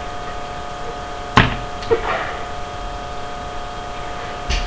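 A steady hum of several pitches, with one sharp knock about a second and a half in and a fainter clunk just after.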